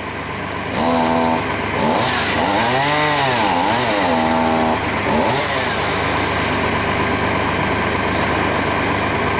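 Chainsaw engine revving up and down several times, then running on steadily at speed.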